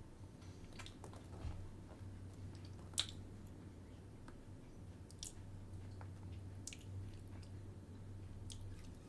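Faint, sparse wet mouth clicks and smacks, a few seconds apart, with the sharpest about three seconds in, over a low steady hum.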